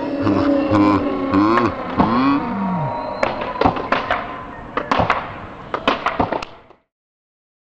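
Onlookers whooping and yelling with long rising and falling shouts, then a string of sharp skateboard clacks and knocks. The sound cuts off suddenly near the end.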